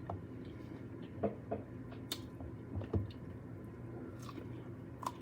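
A person chewing and biting into tender jerk rib meat close to the microphone, with wet mouth sounds and a few short clicks, over a faint steady low hum.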